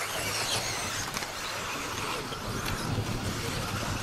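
1/10 electric 2WD off-road RC buggies racing on a dirt track: electric motors whining up and down in pitch as throttle comes on and off, over a steady low rumble of track noise.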